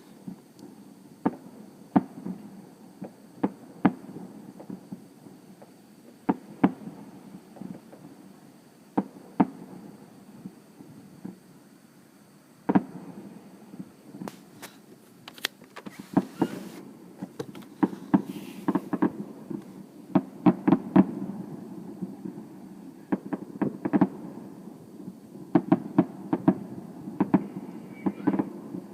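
Fireworks going off: scattered sharp bangs and pops over a low rumble. They are sparse at first and come thick and fast from about halfway on.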